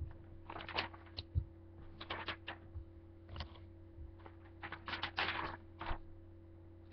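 A sheet of paper being handled close to the microphone: irregular crackles and rustles in about six short clusters, the longest near the end, over a faint steady hum.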